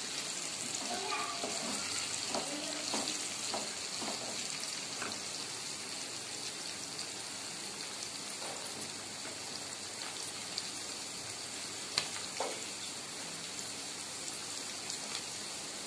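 Pieces of boiled goat mutton frying in oil in a wok, a steady sizzle, with a couple of short knocks about twelve seconds in.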